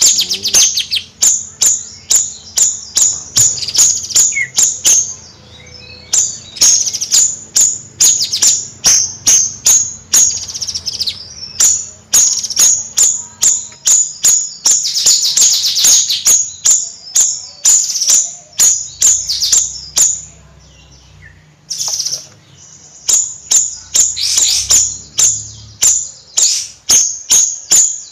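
A bayeman songbird singing in fast 'nyrecet' chatter: runs of sharp, high chips about three a second, broken by a few short pauses.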